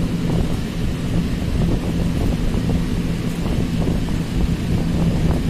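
Steady low rumble with a constant hum, even in level throughout.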